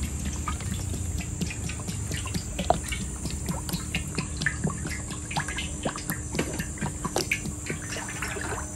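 Cooking oil being poured from a plastic bottle into a large metal wok: a continuous run of small, irregular glugs and splashes that stops shortly before the end.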